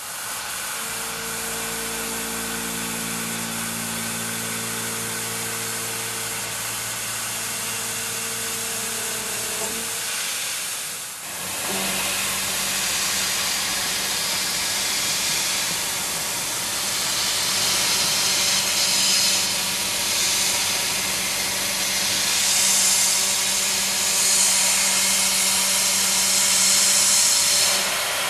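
Milling machine cutting metal with a Walter-Prototyp Tough Guys end mill: steady tones from the cut and spindle under a strong hiss. The sound drops briefly about eleven seconds in, then continues with a louder, hissier cut.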